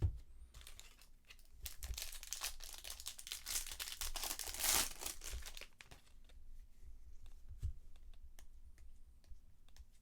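Foil wrapper of a trading card pack being torn open and crinkled for a few seconds, loudest near the middle, followed by faint ticks as the cards are handled.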